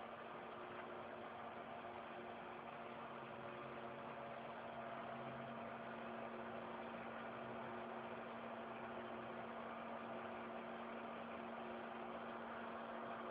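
Industrial three-axis CNC milling machine running: a steady mechanical hum and whine made of several fixed tones, with a lower tone joining from about three seconds in and fading out around eight or nine seconds in.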